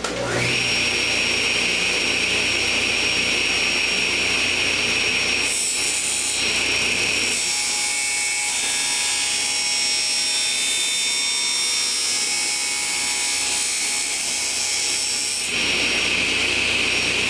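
Table saw with an 80-tooth crosscut blade starting up and running, then cutting through a sheet of plexiglass (acrylic). The sound changes from about five seconds in to about fifteen seconds in while the blade is in the sheet, then the saw runs free again near the end.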